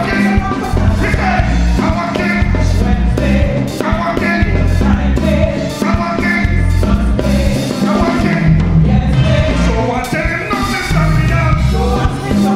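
Live soca band playing with horns, a driving bass beat, and a male singer belting out the song over it.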